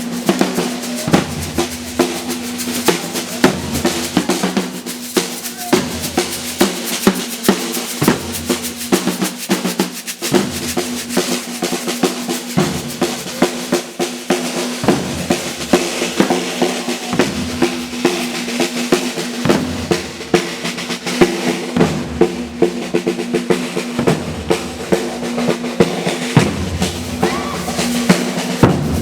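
Brazilian percussion band playing a dense, steady rhythm: snare drums rattling over recurring deep bass-drum strokes.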